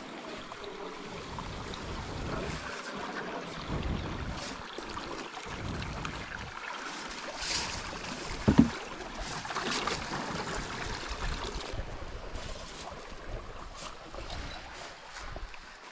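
Wooden canoe being paddled through a narrow marsh creek: water swishing along the hull and paddle, with wind gusting on the microphone. A single sharp knock about eight and a half seconds in is the loudest sound.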